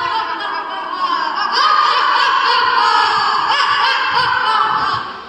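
Several boys laughing loudly together in a theatrical stage laugh, swelling about a second and a half in and fading near the end.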